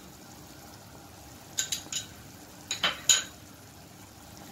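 A steel spoon clinking against a bowl and the pot as cornflour slurry is spooned into the gravy: two clusters of quick taps, the last tap the loudest, over the faint bubbling of the simmering gravy.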